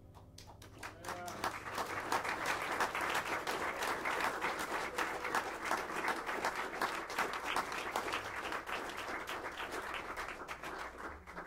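Audience applauding at the end of a live jazz performance. The clapping starts about a second in as the last note of the music dies away, stays steady, then thins out near the end.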